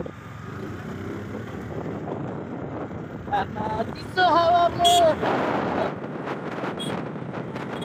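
Wind rushing over the microphone of a moving motorcycle, a steady buffeting noise. About halfway through, a person's voice briefly calls out over it.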